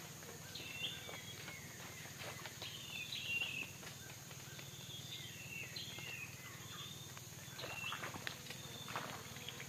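Tropical forest ambience: small birds calling in short chirping phrases, over a steady high insect drone, with a few faint clicks.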